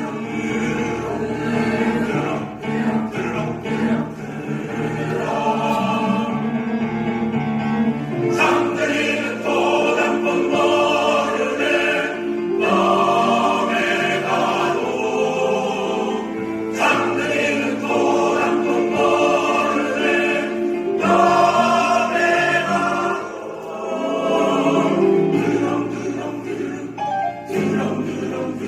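Choir singing in harmony, several voice parts together, in phrases with short breaks about every four seconds.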